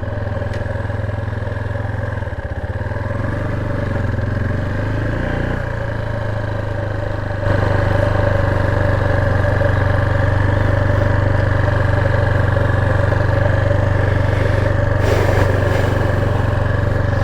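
Motorcycle engine running steadily under way, stepping up in loudness about seven and a half seconds in and staying louder.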